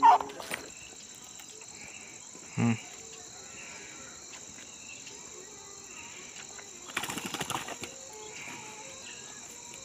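A freshly caught fish flapping and slapping on bare ground in a brief flurry about seven seconds in, under a steady high chirping of crickets.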